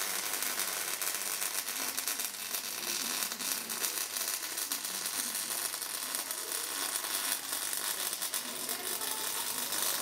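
MIG welding arc crackling steadily as a bead is run along a steel frame, one continuous weld that stops just after the end.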